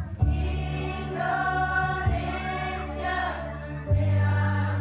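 Women's choir singing together, over a low, sustained accompaniment whose notes change about two seconds and four seconds in.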